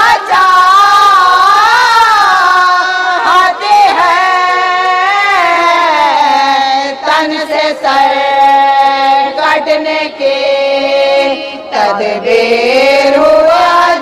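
A woman reciting a marsiya, an Urdu elegy, in a slow melodic chant. Her long held notes waver and bend in pitch, with brief breaks between phrases.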